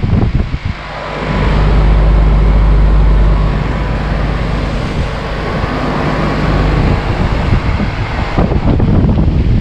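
Daikin DX13 4-ton central air conditioner's outdoor condensing unit running: a steady low compressor hum under the rushing air of the condenser fan. The hum swells up about a second in and then holds steady.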